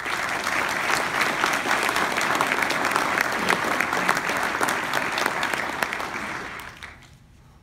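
Audience applauding: many hands clapping together, which dies away near the end.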